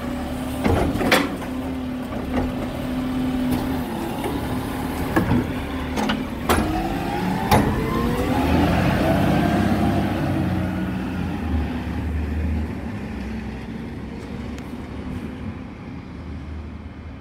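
Side-loading diesel garbage truck: a few sharp clunks as its hydraulic arm empties and sets down a wheelie bin, then the engine revs up, rising in pitch, as the truck pulls away, and fades into the distance.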